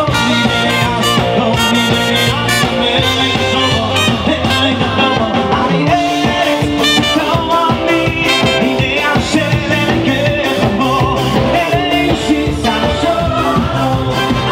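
Live band playing an upbeat number, with keyboard, electric bass, drums and brass, and some singing.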